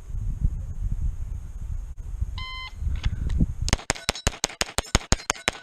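A shot timer beeps once. About a second later a Beretta 92 Elite LTT 9mm pistol fires a rapid string of shots, roughly six or seven a second, that is still going at the end. Before the beep there is a low rumble.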